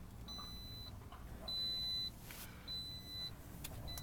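Toyota RAV4's dashboard warning chime beeping steadily, a single high tone about half a second long repeating every second or so, four beeps in all.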